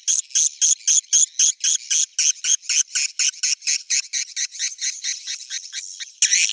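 Swiftlet roosting-call recording (suara inap walet), the lure sound played in swiftlet houses to get the birds to stay and nest: a fast, even train of short high chirping twitters, about five a second, with a few louder, longer chirps near the end.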